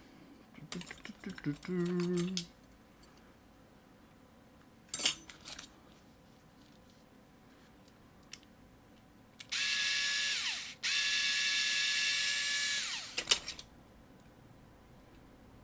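Small handheld power drill running in two spells of about one and two seconds, its whine falling in pitch as it winds down each time. Before it come metal clicks and rattles, and a single sharp knock about five seconds in.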